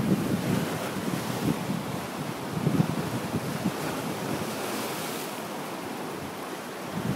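Wind buffeting the microphone over the steady wash of ocean surf on the shore, with heavier low gusts at the start, just before three seconds in and at the end.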